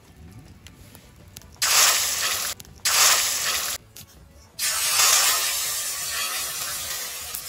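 Food sizzling in hot oil in a wok over a high campfire heat, in three loud bursts that each start suddenly; the last runs on and slowly fades.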